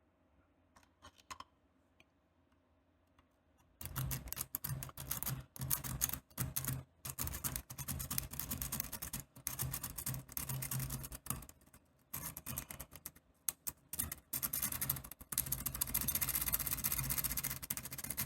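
Pick rake scrubbed rapidly in the keyway of a Vachette pin-tumbler padlock, raking the pins to set them: fast, dense metallic clicking and scratching with brief pauses, starting about four seconds in after a few faint ticks.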